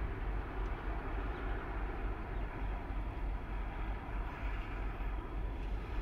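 EMD GP15-1 and two other diesel switching locomotives running as they slowly shift a string of tank cars: a steady, low engine rumble.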